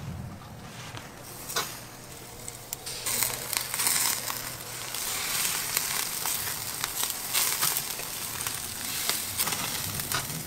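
Meat skewers sizzling on a wire grill over hot charcoal: a steady hiss dotted with many sharp crackles and pops, louder from about three seconds in.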